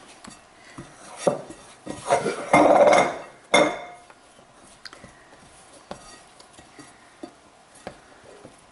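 A glass mixing bowl knocking and clinking as bread dough is kneaded and pushed down in it by hand. A cluster of knocks and clatter comes in the first four seconds, then it goes quieter with scattered small clicks.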